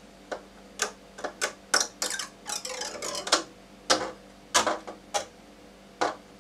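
Thin single-wall 3D-printed plastic crackling and clicking as it is handled and torn apart by hand, in a dozen or so irregular sharp cracks with a denser run of crackling a few seconds in.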